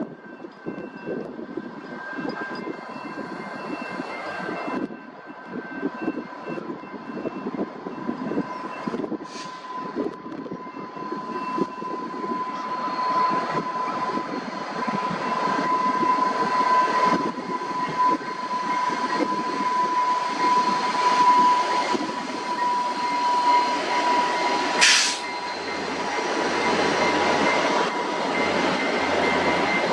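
Via Rail passenger train running past on the rails, the rolling wheel noise building louder over the first twenty seconds or so, with a thin steady high whine throughout. A single sharp clank rings out about 25 seconds in.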